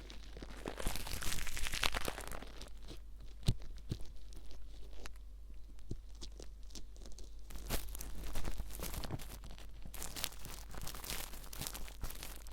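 Ear picks (mimikaki) scraping and rustling in an ear, giving a dry, crackly scratching sound. It is broken by small clicks and is quieter for a few seconds in the middle.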